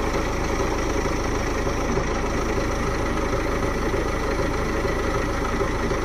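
Preet 949T combine harvester's diesel engine running steadily.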